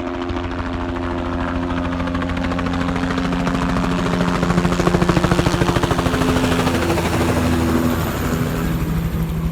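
An engine running steadily with a fast even pulse, growing a little louder around the middle and then easing.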